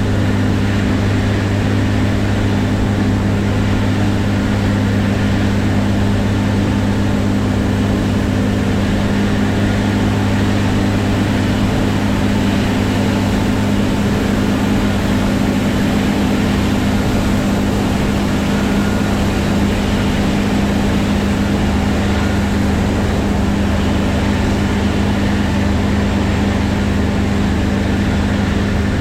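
Heavy farm harvest machinery's diesel engine running at constant revs, a steady low drone with no change in speed.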